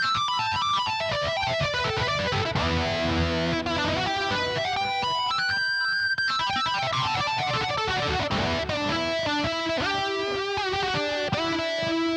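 Roland AX-Synth shoulder keyboard playing a lead line with a guitar-like sound: quick runs of notes falling and rising, then a long held note near the end.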